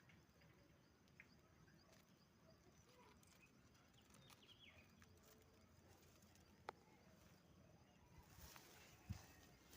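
Near silence: faint outdoor background with a few scattered light clicks, one sharper tick about two-thirds of the way through, and a low thump near the end.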